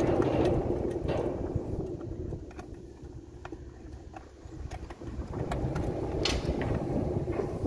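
Scattered small clicks and taps of a hand tool and fingers on a floodlight's aluminium housing as its cover screws are fastened, over a steady low rumble.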